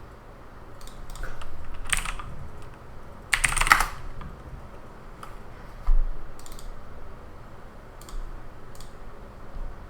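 Typing on a computer keyboard in short runs of key clicks: a quick flurry about three and a half seconds in, then scattered single keystrokes. There is a dull knock about six seconds in.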